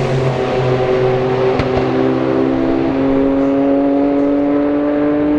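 Sauber Mercedes C11's 5.0-litre twin-turbo V8 and another Group C race car accelerating away, the engine note climbing steadily as they pull through a gear.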